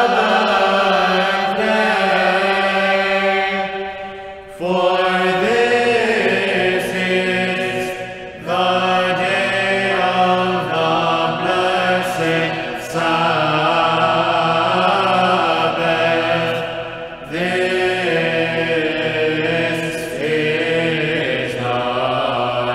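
Byzantine choir chanting over a steady low held drone note, the melody moving in phrases with short breaks about every four seconds.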